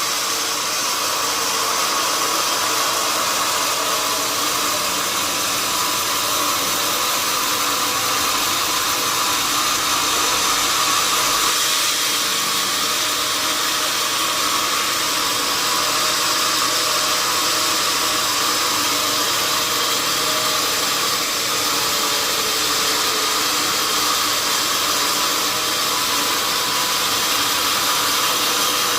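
Sawmill machinery running steadily: an even, unbroken mechanical noise with a hiss, loudest in the upper range.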